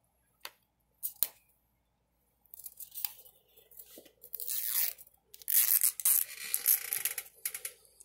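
Wrapping on a toy capsule ball being peeled and torn off by hand: a couple of light clicks, then from about two and a half seconds in, irregular tearing and crinkling that is loudest in the last few seconds.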